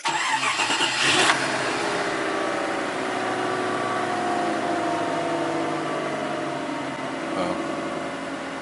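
1991 Infiniti Q45's V8 idling steadily after a brief louder rush about a second in, its pitch easing slowly downward as the idle settles. It is running on a newly replaced mass air flow sensor connector, with an idle the owner calls a lot more calm.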